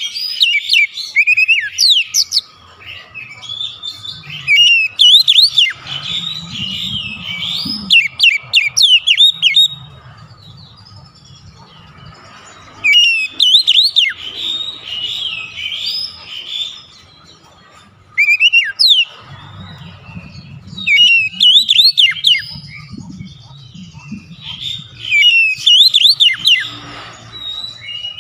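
Oriental magpie-robin singing in bouts of rich, varied whistled phrases full of quick rising and falling notes, with pauses of a few seconds between bouts.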